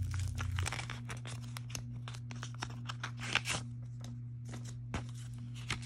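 A paper envelope being slit open with a blade: a run of crisp crackling cuts and paper rustles, with a few sharper clicks near the end.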